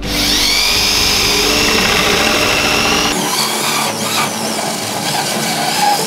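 Electric drill with a small hole saw cutting into a refrigerator's top panel. The motor whine starts sharply and holds steady, then about halfway through its pitch begins to waver as the saw cuts.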